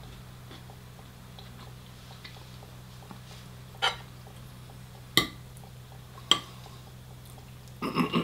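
Eating sounds over a steady low hum: faint even ticking, then three sharp clicks of cutlery on takeaway containers about a second apart, and a short clatter near the end.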